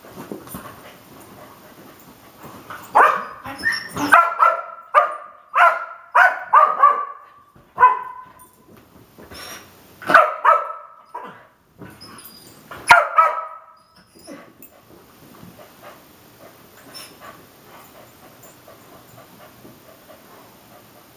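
Miniature Australian Shepherd barking in quick bursts, about a dozen sharp barks between roughly 3 and 13 seconds in, then quiet. The barking is the herding dog's excited response to quick movement nearby, its prey drive triggered.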